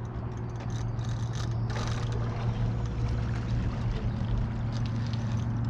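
Electric trolling motor (MotorGuide R3) running with a steady low hum; a second, higher tone joins about four seconds in.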